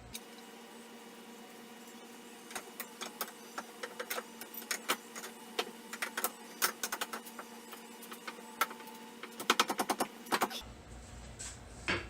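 Irregular clicks and knocks, with a quick run of rattling clicks near the end, as a replacement Corvette rear leaf spring is worked against the suspension in an attempt to slide it into place. It will not go in.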